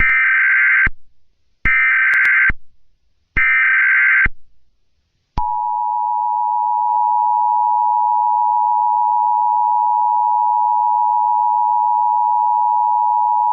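Emergency Alert System tones: three short bursts of screeching SAME header data, then after a brief pause the two-tone attention signal (853 and 960 Hz together), held steady for about eight seconds.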